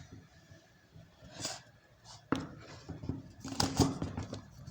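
Scattered handling clicks and light knocks, with a sharp knock about two seconds in and a cluster of louder clicks near the end.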